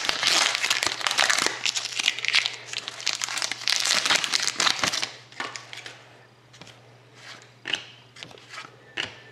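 Plastic wrapping of a hockey card pack being torn open and crinkled. There are about five seconds of dense crackling, then a few scattered crinkles.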